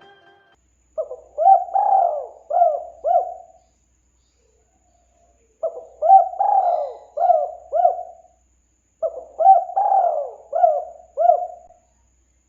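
Spotted dove (tekukur) cooing: three phrases of five low, arching notes each, a couple of seconds apart.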